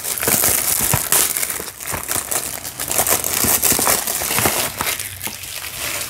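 Clear plastic shrink wrap crinkling and crackling as it is torn and pulled off a Blu-ray case. The crackling is dense and eases off near the end.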